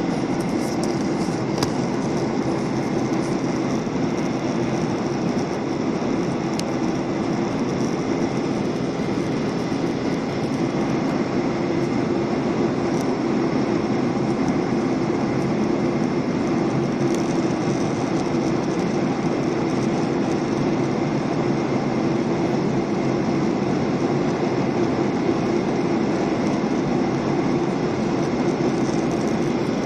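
Steady rumble and rush of engine and airflow noise heard inside an airliner cabin in flight.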